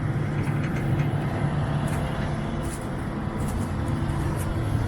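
Combine harvester's diesel engine running at a steady hum.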